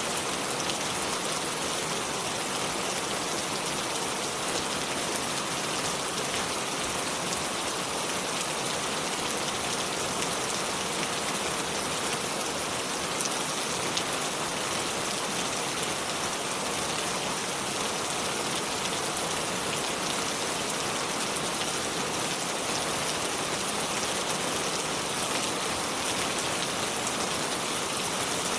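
Continuous water noise: an even, unchanging hiss of water with fine spattering detail and no single splash standing out.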